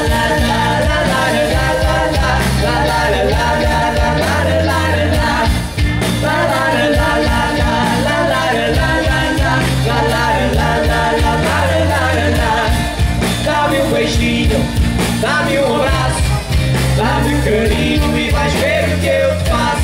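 Live pop band playing loud through a PA system, with drums, a bass line, electric guitars, keyboards and some vocals.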